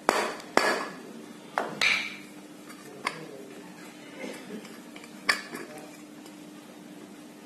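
Sharp metallic knocks and clinks from a ceiling fan motor's metal housing being knocked and handled during disassembly: two in the first second, two more near two seconds, then scattered fainter clinks and one loud knock about five seconds in.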